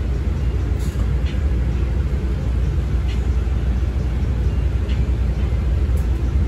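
A CTA 5000-series rapid-transit railcar running along the track: a steady low rumble, with a few faint short ticks now and then.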